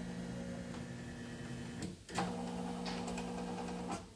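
Yoko portable embroidery machine running with a steady motor hum, which stops briefly about two seconds in, starts again and stops near the end.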